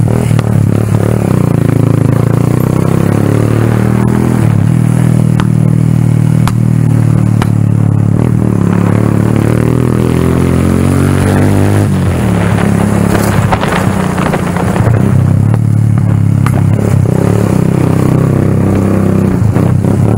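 Motorcycle engine running under way, its note dropping and then climbing again about halfway through as the throttle changes, with a few knocks and rattles from the rough road.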